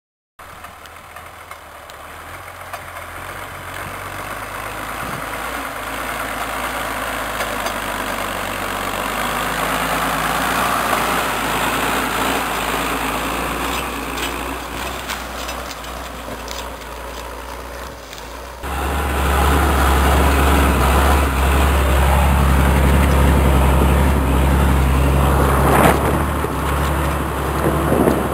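Deutz-Fahr AgroPrima 6.06 tractor pulling a four-furrow Huard plough through soil, its engine running steadily under load and growing louder over the first dozen seconds. About two-thirds of the way through, the sound changes abruptly to a louder, deeper steady engine drone heard from on the tractor, with a brief knock near the end.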